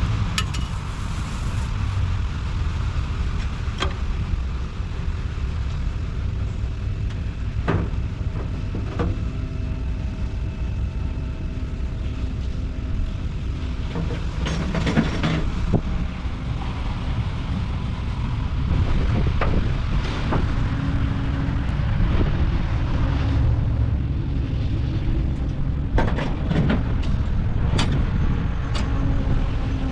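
Concrete mixer truck's diesel engine running steadily, with occasional short knocks and clanks throughout.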